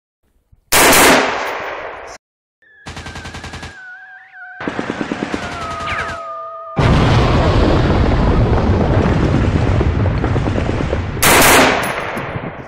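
Gunfire in an edited sequence with hard cuts: a single loud shot about a second in, a short stretch of very rapid fire and one carrying steady high tones, then several seconds of dense, continuous firing, and another loud single shot near the end.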